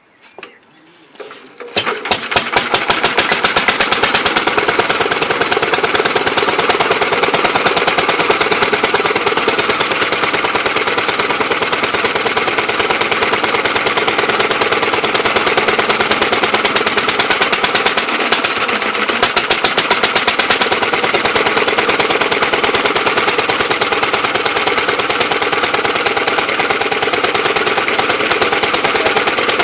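Lister D 2 hp single-cylinder stationary engine catches about two seconds in after a few faint sounds, then runs steadily with an even, rapid beat. The owner says its ignition timing needs adjusting a little.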